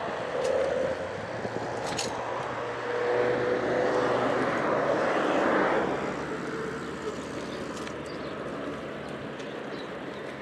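Motor traffic passing: a vehicle's noise swells up and fades away between about three and six seconds in, over a steady hum of road noise.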